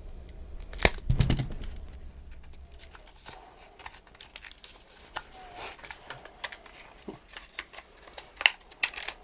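Handling noises at a workbench: a sharp click a little under a second in and a heavier knock just after, then scattered small clicks with light rustling and tearing.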